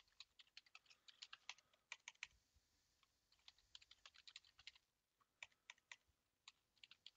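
Faint typing on a computer keyboard: irregular runs of key clicks, broken by a couple of brief pauses.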